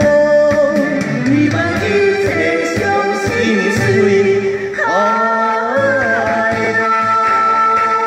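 A man and a woman singing a duet into handheld microphones over instrumental accompaniment, holding long notes.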